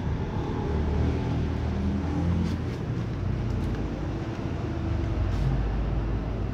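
Steady low rumble of background traffic, with a few faint clicks.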